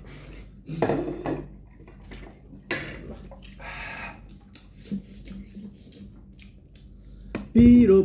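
Noodle-eating sounds: cutlery clinking against a bowl, with short clicks and brief noisy smears scattered through. A loud voice breaks in near the end.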